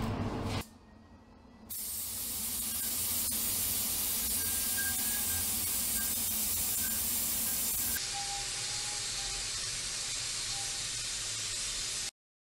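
Compressed-air paint spray gun hissing steadily as it sprays an alloy wheel, starting about two seconds in and cutting off abruptly near the end. A short noise comes before it at the very start.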